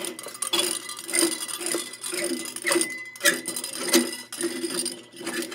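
A high-pressure sodium bulb's screw base being twisted out of its porcelain socket, stuck tight: irregular squeaks and scraping from the threads, broken by a few sharp clicks.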